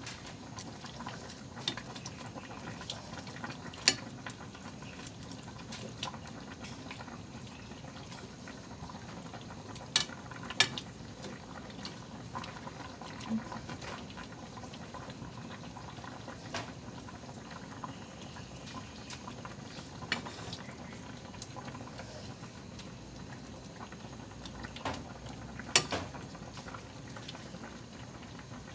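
Coconut-milk fish stew simmering in a metal pot with a steady bubbling hiss. A metal ladle clinks sharply against the pot several times as it is stirred.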